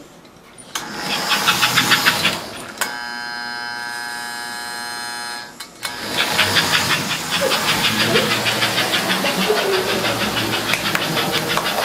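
A.C. Gilbert toy steam train running with its rapid, even puffing chug. About three seconds in the chugging gives way to a steady buzzing whistle tone for about three seconds, then the chugging starts again and carries on.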